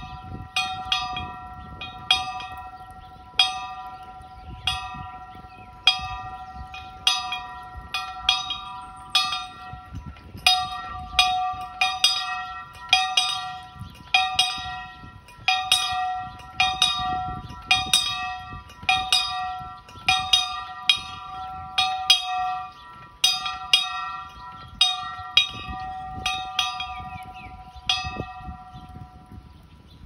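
Post-mounted farm bell rung over and over by its rope, the clapper striking about once a second, often twice in quick succession, with the bell's ringing tone carrying on between strikes. The ringing stops near the end.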